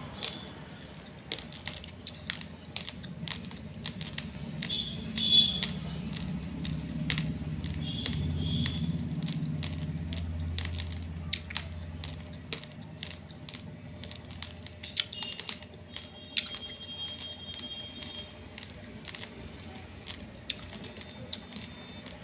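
Raw long-grain basmati rice grains being crunched between the teeth, a steady run of sharp dry cracks and clicks. A low hum rises in the background for several seconds in the first half, and a faint high beeping tone comes and goes a few times.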